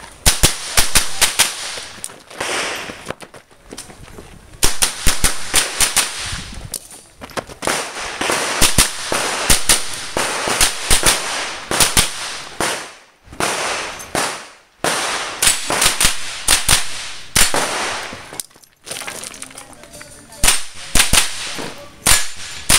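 Small-bore rifle firing rapid strings of shots: several quick shots, then a brief pause, over and over. This is the shooter working through a course of fire.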